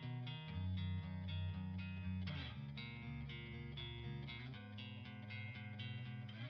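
Quiet background music led by plucked guitar with a steady rhythm.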